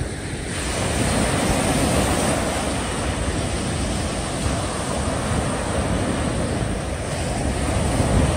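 Small waves breaking and washing up a sandy beach in foam, the surf swelling louder about a second in and again near the end, with wind buffeting the microphone.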